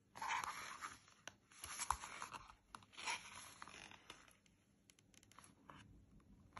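Paper rustling and scratching as the card flap of a lift-the-flap picture book is handled and lifted, in several short scratchy stretches, then a few light clicks near the end.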